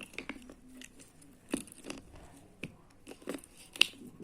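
Slime being squished and stretched by hand, giving irregular wet clicks and pops, the loudest near the end.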